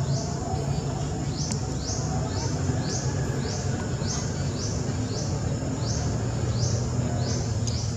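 Steady outdoor ambience: a small unseen animal gives a high, short chirp about twice a second in an even rhythm, over a low, steady rumble.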